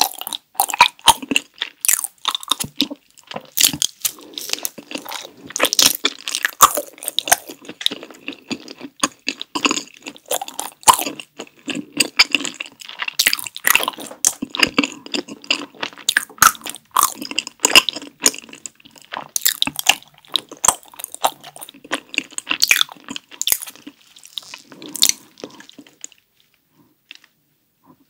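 Close-miked chewing of a chocolate-filled green tea rice cake: many quick wet mouth clicks and chews, dying away about two seconds before the end.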